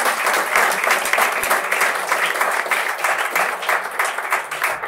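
Audience applauding a stand-up comic's punchline: dense, steady clapping from many hands.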